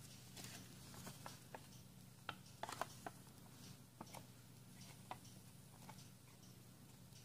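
A sheet of origami paper being handled and creased by hand: faint scattered crinkles and ticks, with a short cluster of louder crackles about two and a half seconds in, over a faint steady hum.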